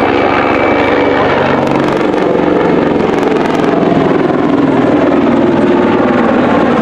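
Mil Mi-35 (Mi-24V) helicopter making a low, close flypast: the loud, rapid chop of its main rotor over the running of its twin turboshaft engines, with a thin high whine over the first couple of seconds.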